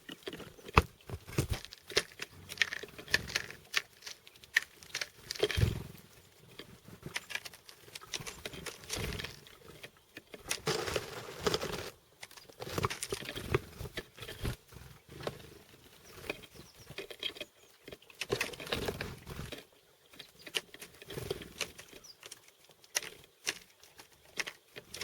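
Chickadees pecking and scratching at seeds: irregular taps, scratches and rustles, with short louder bursts every second or two.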